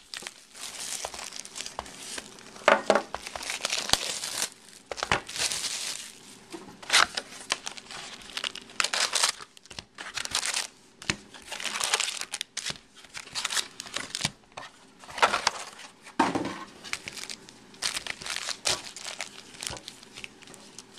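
Shiny foil Topps Chrome trading-card pack wrappers crinkling and tearing as packs are handled and ripped open, in many short irregular bursts.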